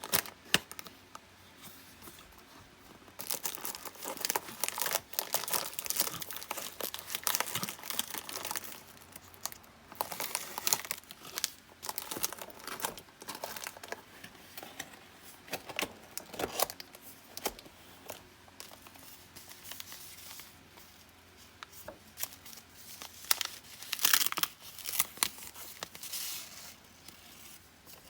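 Irregular bursts of crinkling and tearing, loudest about 3 to 9 seconds in and again around 24 seconds, with quieter gaps between.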